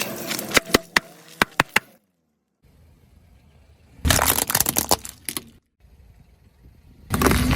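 Objects cracking and crunching as a car's tyre rolls over and crushes them: a run of sharp single cracks, then two longer bursts of dense crackling, each stopping abruptly.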